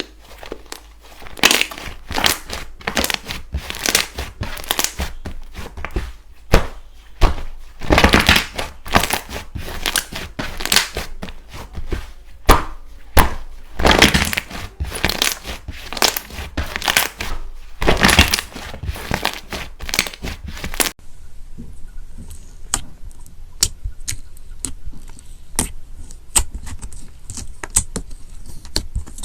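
Slime being squeezed and pressed by hand, giving dense crunchy crackles and crinkles. About two-thirds of the way through it changes abruptly to quieter, sparser sharp clicks and pops.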